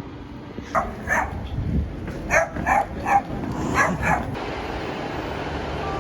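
A dog barking: a series of short barks, mostly in pairs, that stop a little after four seconds in.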